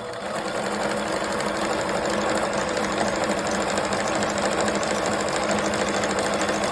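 Morse sewing machine running at a steady speed, stitching. It picks up speed over the first second, then holds an even, rapid whir.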